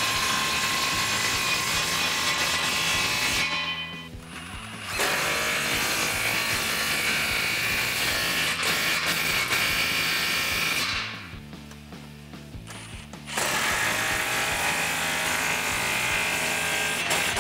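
Cordless power tool spinning a socket to tighten exhaust band-clamp nuts. It runs in three long spells of several seconds each, with short pauses about four seconds in and again around twelve seconds in.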